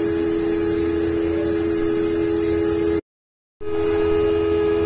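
CNC engraving machine's spindle running steadily as it mills a metal plate under coolant, making a steady hum. The sound cuts out for about half a second about three seconds in, then returns unchanged.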